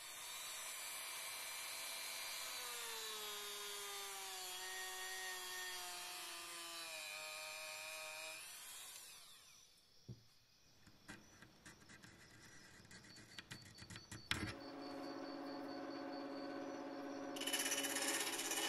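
A machine whine that slowly falls in pitch and stops about nine seconds in, followed by a few small clicks and taps. Then a benchtop bandsaw's motor starts humming, and near the end the blade cuts into a wooden axe handle, much louder.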